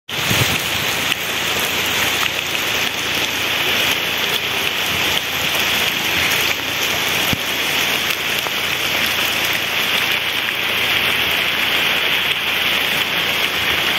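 A steady, even hiss of outdoor background noise with no distinct events, strongest in the upper-middle range.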